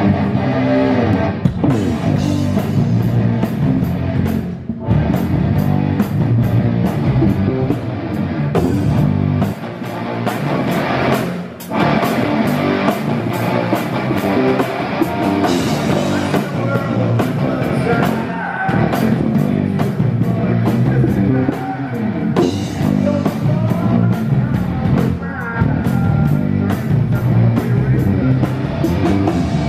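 Live rock band playing loud on stage: electric guitars over a drum kit with steady cymbal and drum strokes, the sound dipping briefly a few times.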